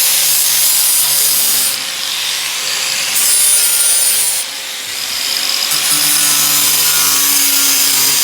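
Sander grinding old rust off the steel of a 1957 International Harvester, a steady harsh abrasive hiss. It eases off twice as the sander is lifted or shifted, then bears in again.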